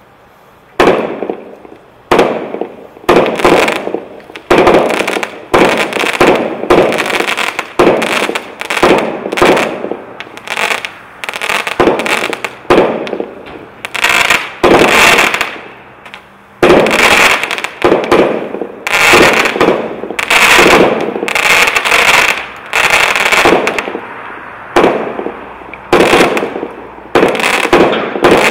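Multishot firework cake (Powerhouse 'Sizzling Sunrise', 30 shots) firing in quick succession, roughly one shot a second. Each shot is a sharp report followed by a crackling, fizzing tail from the bursting stars, with one brief pause about halfway through.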